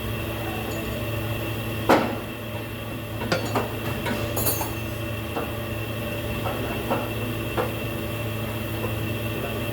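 Steady mechanical hum with a sharp metallic clank about two seconds in, followed by a scatter of lighter clicks, taps and a brief jingle: hand tools and metal parts being handled during a car transmission oil and filter job.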